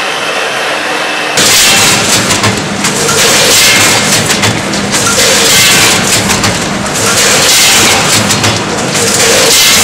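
Automatic vertical popcorn packing machine running: a loud, steady mechanical noise that jumps louder about a second and a half in.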